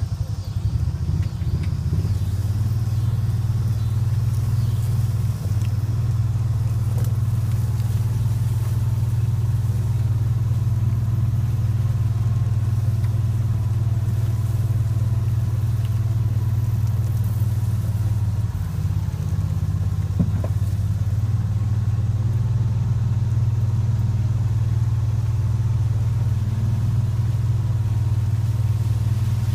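Off-road vehicle engine running at a steady speed while driving through tall grass, a constant low drone.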